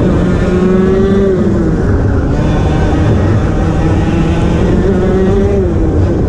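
Onboard sound of a 125cc two-stroke TAG racing kart engine at racing speed. Its pitch climbs and holds high, drops about a second and a half in, climbs again, and drops once more near the end as the kart lifts for corners.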